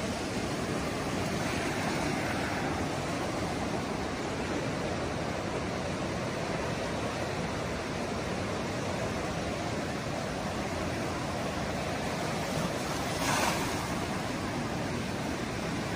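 Steady rushing of floodwater, with a brief louder surge about thirteen seconds in.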